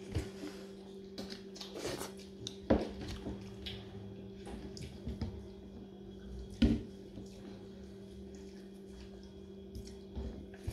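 Fingers mixing and scooping wet rice and dal on a steel plate: soft squelching with scattered clicks and taps against the metal, and two sharper knocks about three and seven seconds in. A low steady hum runs underneath.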